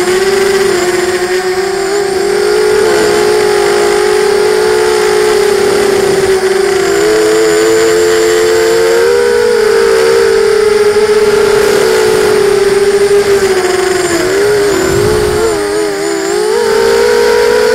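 QAV250 racing miniquad's four brushless motors and propellers whining close to the onboard camera's microphone, the pitch wavering up and down with the throttle through the corners. About fifteen seconds in the pitch dips and wobbles briefly before climbing back.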